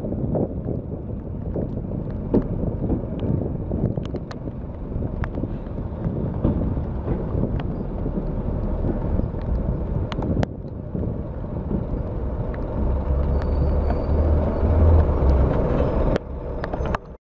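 Class 121 first-generation diesel railcar running and moving along a station platform: a steady low diesel rumble with scattered sharp clicks. The engine note grows louder and heavier for a few seconds toward the end, then drops away and the sound cuts off abruptly.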